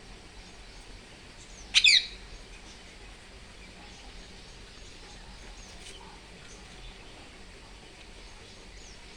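A green parrot gives one short, loud, harsh squawk about two seconds in, over faint scattered bird chirps and a steady background hiss.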